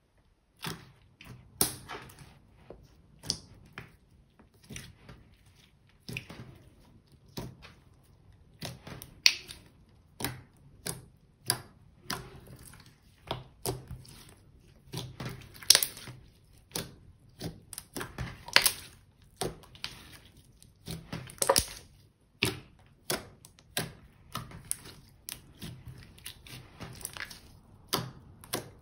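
Glossy clear slime with glitter and eyeshadow mixed in, being kneaded, stretched and folded by hand: irregular sticky pops, clicks and crackles, a few of them loud.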